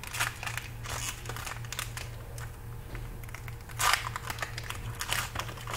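Crinkling of a foil trading-card pack wrapper being handled and torn open, in a run of irregular rustles with a louder crackle about four seconds in.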